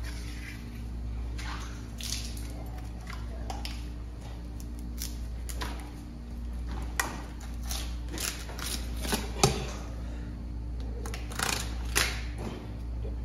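Long tuna knife scraping and cutting along the backbone of a large bluefin tuna: faint scrapes with scattered short clicks, more of them in the second half, over a steady low hum.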